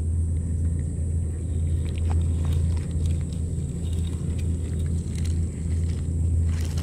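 A steady low hum, like a nearby idling motor, with a steady high whine above it. Over this come faint, short wet clicks of a cat chewing and licking wet food from a metal dish.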